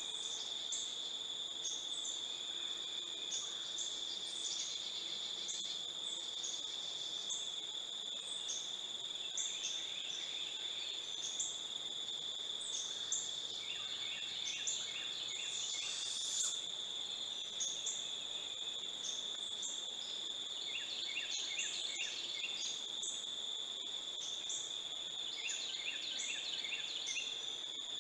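Insects droning, a steady high-pitched buzz that never lets up. Small birds call over it: short high notes repeated about once a second, and a few brief trills.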